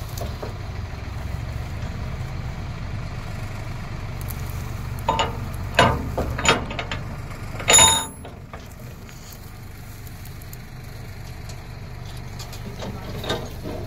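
A tractor's diesel engine idling steadily. About five to eight seconds in come several metal clanks and knocks as a trolley drawbar is coupled to a thresher's hitch; the last is the loudest and rings. After it the engine drone is quieter.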